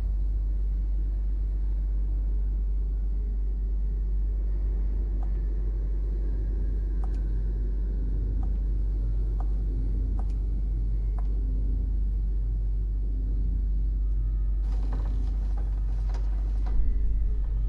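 Steady low rumbling drone, with a few faint ticks in the middle and a short hiss near the end.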